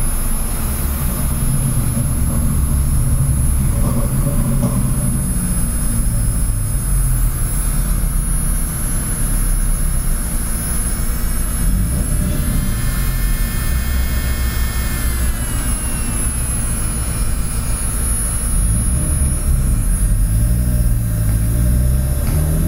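NATPLUS rechargeable nail drill (e-file) motor running steadily as its speed is turned up towards full power, with a whine that rises in pitch about twelve seconds in.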